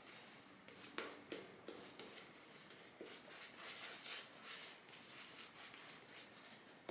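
Razorock Beehive synthetic shaving brush working Dr. Selby shaving cream onto a stubbled face: faint, soft brushing strokes of lather, with a few light ticks.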